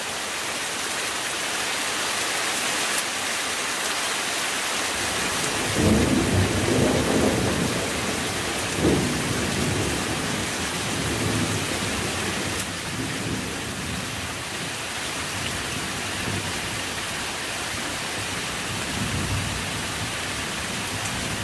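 Steady hiss of rain and small ice pellets falling. A roll of thunder starts about six seconds in, loudest over the next three seconds, then rumbles on more softly.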